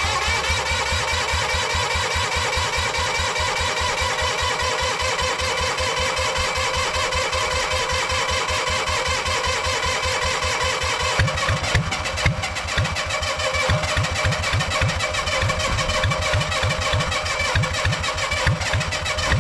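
Small generator set's engine running on a test run right after being started, with a fast, even beat. About eleven seconds in the beat slows and turns uneven and louder.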